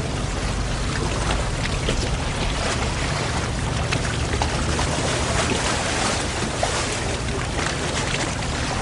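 Steady water noise, an even wash with many faint scattered taps like drops.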